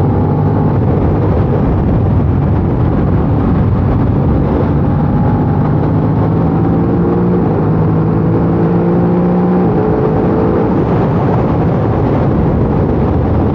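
Aprilia RS660's parallel-twin engine through its stock exhaust, under way with wind rush; its pitch climbs slowly from about a third of the way in, then drops away sharply after about ten seconds.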